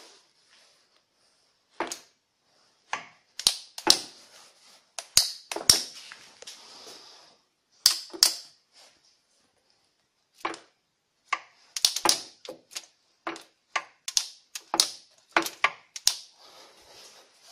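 Irregular sharp metal clicks and clacks, about twenty scattered through, from the speed-change levers on the headstock of a Soviet 1K62 lathe being shifted by hand.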